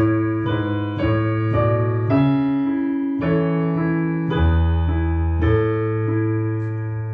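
Keyboard playing a slow phrase in the low register: held chords over a bass line, with the notes changing roughly once a second, fading out at the end.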